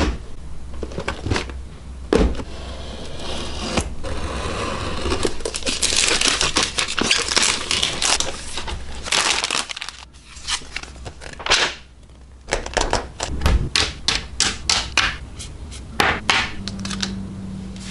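Clear plastic shrink-wrap crinkling and tearing as it is stripped off a cardboard model-kit box. This is followed by a run of sharp clicks and clacks as the kit's plastic sprues are handled and set down.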